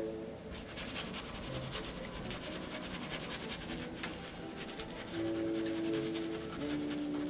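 Bristle paintbrush scrubbing paint onto a canvas: a quick run of scratchy rubbing strokes over long held musical notes. The strokes fade out about five seconds in, and the held notes grow louder from there.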